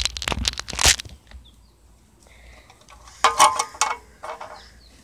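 Crushed aluminium drink cans crinkling and clattering as they are handled and set down as targets: a flurry of sharp crackles in the first second, then another short burst about three seconds in.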